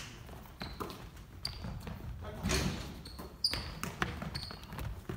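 Basketball game on a hardwood gym court: scattered thuds of the ball and short high sneaker squeaks, echoing in the hall.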